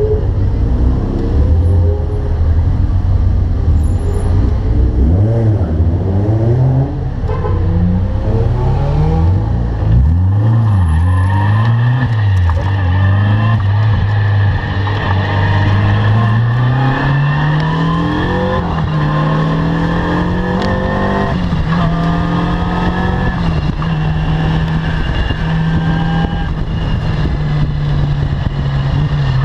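Caterham R300 sports car engine revving hard on track, its pitch repeatedly climbing and dropping through gear changes in the first half. It then climbs steadily and settles into a high, even drone.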